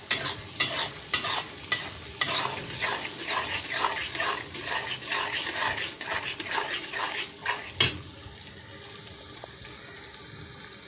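Steel spatula scraping and knocking around a karahi as a tomato masala with beef brain is stir-fried in oil, the masala sizzling under it; the strokes come about twice a second. This is the bhuna stage: the tomato water has cooked off and the masala is being fried until the oil separates. The stirring stops with a last, loudest knock about eight seconds in, leaving only a steady sizzle.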